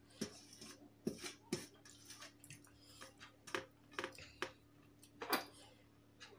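Fingers mixing rice on a steel plate: faint scattered clicks and squishes as the rice is kneaded and fingertips scrape the metal, over a faint steady hum.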